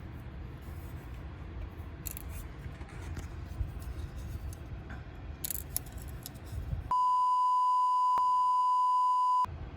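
Faint scraping and small clicks of hands fiddling with small metal pins, then about two and a half seconds of a loud, steady, single-pitch electronic bleep near the end, dubbed over the soundtrack as a censor bleep.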